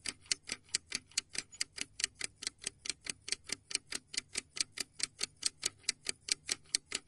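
Clock-ticking sound effect for a quiz countdown timer: evenly spaced sharp ticks, about four a second.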